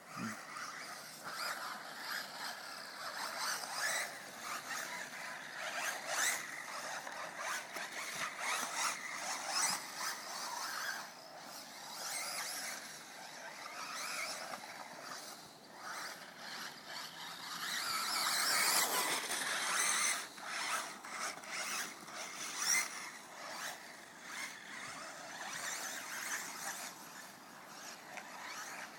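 TeamC TC02c radio-controlled buggy driving on a dirt track: its motor whine and tyre noise rise and fall as it accelerates, brakes and corners. The whine swells loudest about two-thirds of the way through.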